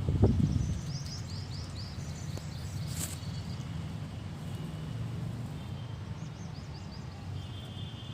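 Small birds chirping in quick runs of short high notes, over a steady low rumble. There is a dull thump right at the start and a sharp click about three seconds in.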